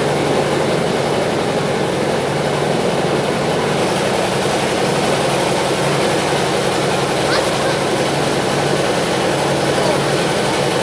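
Steady background chatter of a large crowd, with a small engine running at an even, low hum underneath.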